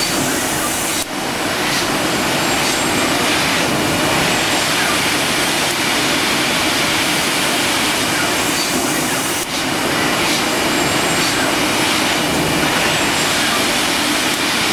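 Steady loud rushing noise of running industrial machinery, even and without rhythm, briefly dipping about a second in and again about nine and a half seconds in.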